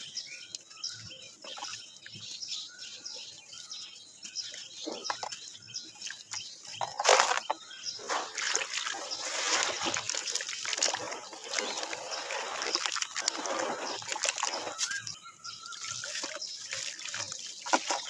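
Soft red dirt crumbling in hands into a tub of water, with grains and crumbs trickling and dribbling in. About seven seconds in there is a splash, and for several seconds hands squelch and slosh through the muddy water before the crumbling turns quieter again.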